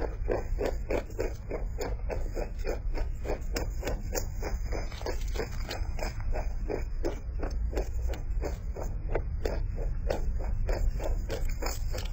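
Domestic rabbit chewing fresh herb sprigs close to the microphone: fast, steady crunching at about four to five bites a second.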